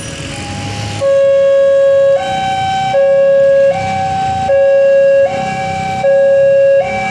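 Two-tone electronic warning siren, alternating steadily between a lower and a higher tone about every three-quarters of a second, the lower tone louder. It is faint at first and becomes loud about a second in. Low traffic rumble underneath.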